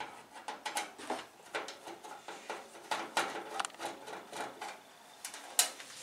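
Hands handling a microwave oven: a run of irregular light clicks, taps and rubbing against its casing and door, with one sharper click near the end.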